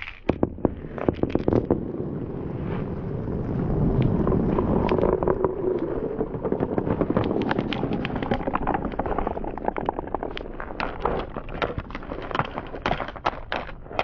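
A handful of glass marbles rolling down wooden marble-run tracks: a rumbling roll that swells in the middle, with rapid clicks and knocks of marbles hitting the track and each other near the start and again near the end.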